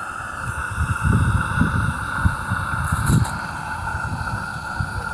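Gauge one live-steam locomotive, a Roundhouse Lady Anne, steaming with a steady hiss and uneven low puffs, while its valve timing is being adjusted.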